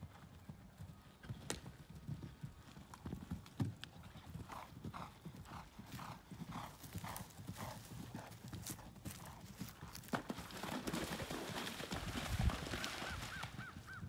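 A horse's hoofbeats as it moves over ground while being schooled cross-country, falling into an even rhythm of about two beats a second for a few seconds, then growing louder and noisier near the end.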